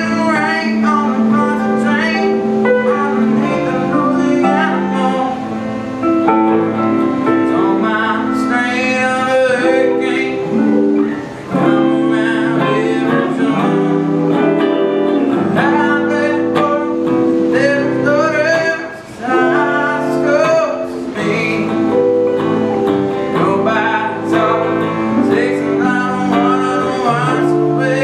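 Two electric guitars played live through small amplifiers: a melodic lead line with bending notes over strummed chords.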